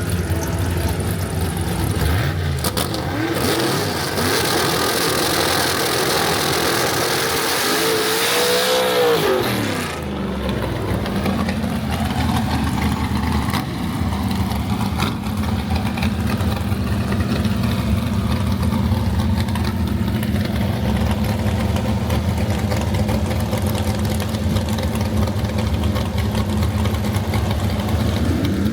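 Drag-racing car engines: revving, with the pitch rising and falling and then dropping sharply about nine seconds in, followed by a steady low engine rumble.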